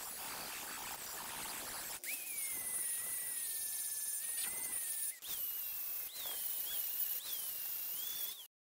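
Electric angle grinder with a flap disc grinding the steel shell of an old air compressor tank: a grinding hiss, then a motor whine from about two seconds in whose pitch jumps up and sags back several times in the second half. The sound cuts off abruptly near the end.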